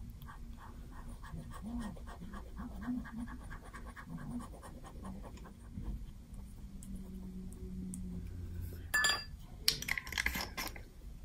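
Small paintbrush dabbing and stroking fountain pen ink onto notebook paper in many soft, quick strokes. About nine seconds in come a few louder knocks and rattles as the brush goes into a glass jar of water to be rinsed.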